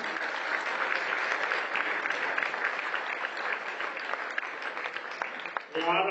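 Audience applauding, a dense patter of many hands clapping, which stops near the end as a man's singing voice begins the next verse.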